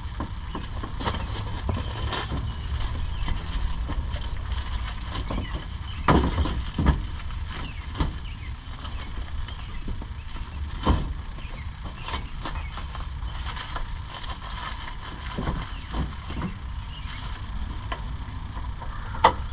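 Scattered plastic knocks and clicks of a pickup truck's headlight assembly being handled and lined up into place, the loudest about six seconds in and near the end, over a steady low rumble.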